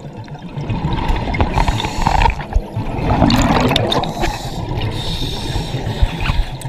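Scuba divers breathing underwater through their regulators: stretches of hiss alternating with bubbling rushes of exhaled air.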